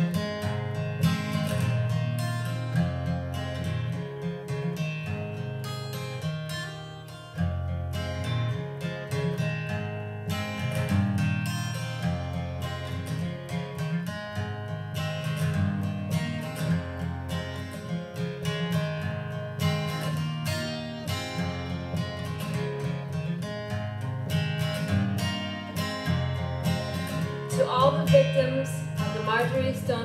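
Acoustic guitar strummed in a steady rhythm, an instrumental passage of a slow song. Near the end a voice comes in singing over the guitar.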